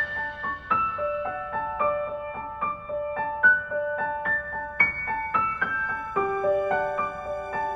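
Background piano music: a melody of single struck notes played at a steady pace.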